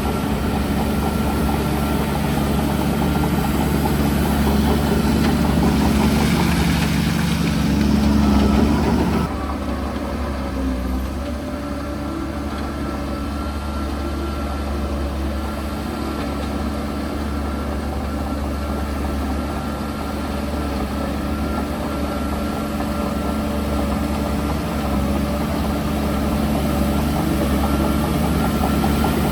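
Heavy diesel engine of construction machinery running steadily. It is louder and hissier for the first nine seconds, then drops suddenly to a lower, steady run.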